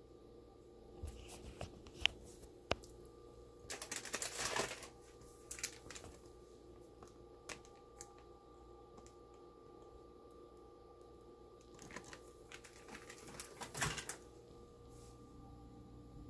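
Plastic candy packaging crinkling as it is handled, in two short bursts, with scattered clicks and taps.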